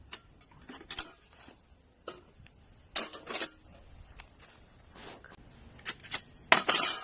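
Metal clinks, knocks and rattles from a folding sheet-steel camping fire pit being handled, with a louder clatter near the end.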